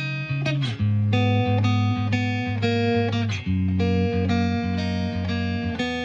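Background music: plucked guitar notes over a low bass line that changes note about once a second.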